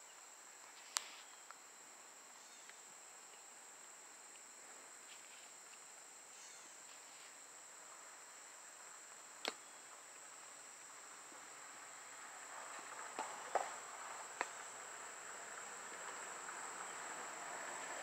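Steady high-pitched insect trill with a few sharp clicks: one about a second in, one near the middle, and three close together later. A faint rushing noise slowly builds toward the end.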